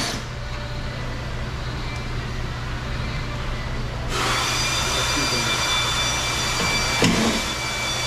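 Steady mechanical hum. About four seconds in, a loud steady hiss with a high whine starts up and keeps going. A single knock comes about seven seconds in.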